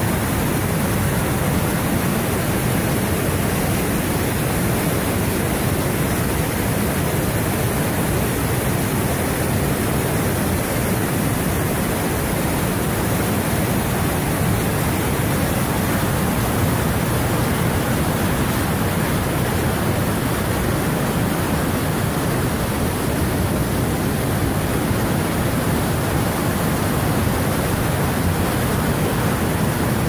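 Mountain river rapids: whitewater rushing over and between boulders in a steady, loud, unbroken rush.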